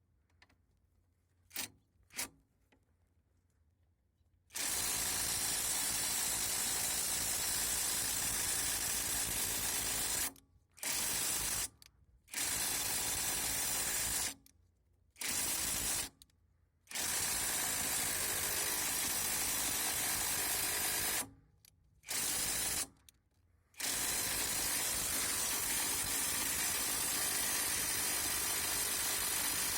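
AutoJare B1803 brushless half-inch-drive cordless impact wrench running in long bursts, stopping briefly several times and starting again. Two short clicks come before the first burst.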